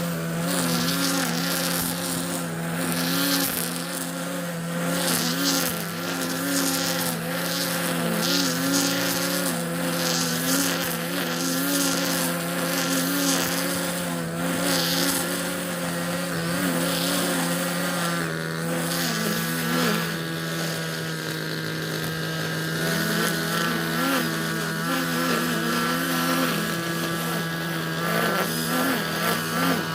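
Petrol grass-cutting machine running steadily at working speed while cutting grass, its engine note wavering with the load and shifting slightly about two-thirds of the way through.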